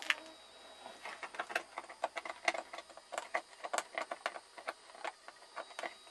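Irregular light clicking and scratching, several clicks a second: a kitten's claws catching on the wicker basket and its blanket as it scrabbles at the side.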